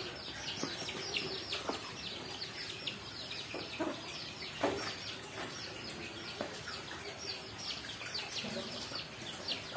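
Small birds chirping over and over, a quick falling chirp several times a second, with a few faint knocks.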